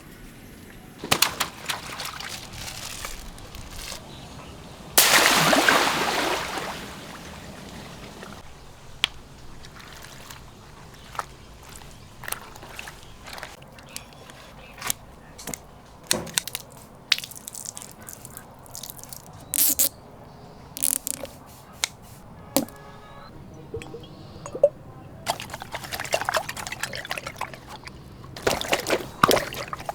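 Water splashing and sloshing, with a loud gush of water about five seconds in and scattered short splashes and knocks after it.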